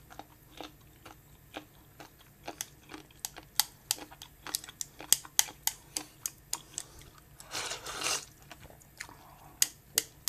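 A person eating ochazuke with crisp pickled white gourd (uri no teppouzuke), crunching with many quick, sharp bites, with a brief slurp about eight seconds in.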